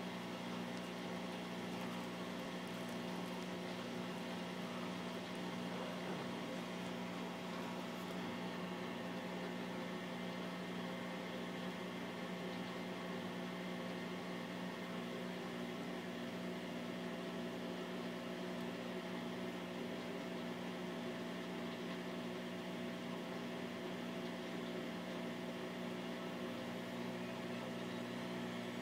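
Bosch WVT 1260 front-loading washing machine at the start of its final spin, motor and drum turning with a steady hum. Near the end a faint rising whine begins as the drum starts to speed up toward 1200 rpm.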